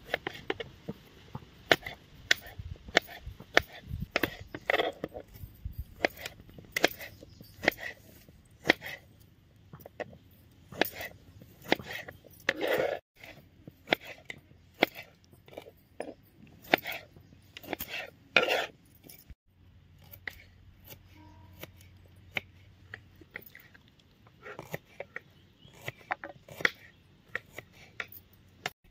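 Irregular sharp clicks and knocks of cooking work with utensils, at an uneven pace of a few strokes a second.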